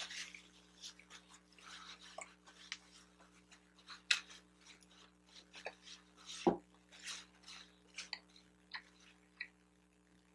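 Close-miked chewing of a bagel sandwich: irregular wet mouth clicks and soft crackles, with one louder low thump about six and a half seconds in.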